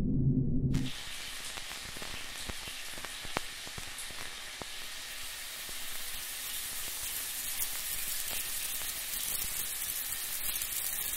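Shower water running: a steady hiss of falling spray with a few sharp ticks of drops, cutting in about a second in.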